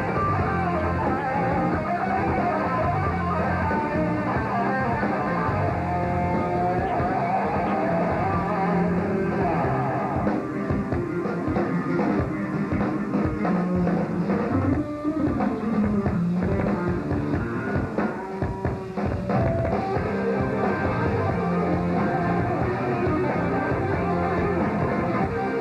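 Live rock band playing: electric guitars over bass and a drum kit, loud and continuous, with the drum hits standing out more through the middle.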